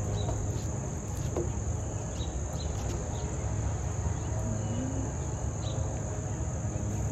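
Steady high-pitched insect chorus, with a low steady hum underneath.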